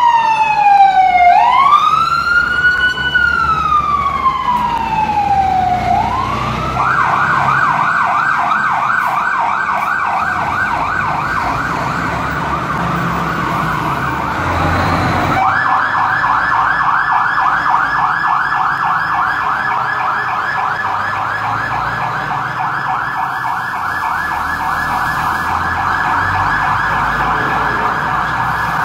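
Fire trucks' electronic sirens sounding as they move out on an emergency call: a slow rising and falling wail that switches about six seconds in to a fast yelp. The yelp drops out briefly about halfway through and starts again louder.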